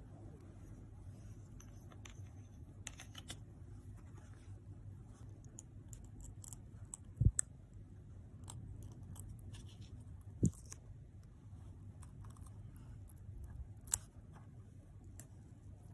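Faint clicks and small taps of a plastic squeeze tube of decoden cream being handled and a piping tip fitted onto it, with a few sharper knocks about seven, ten and fourteen seconds in, over a low steady hum.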